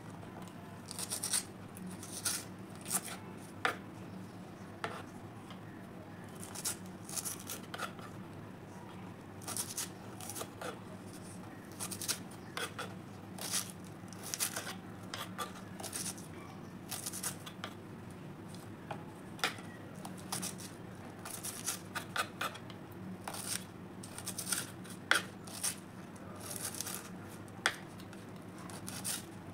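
Kitchen knife slicing green chillies on a bamboo cutting board: short, irregular cuts and taps of the blade against the wood.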